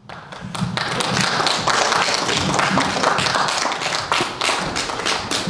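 An audience clapping: many hands in a dense, uneven stream of claps.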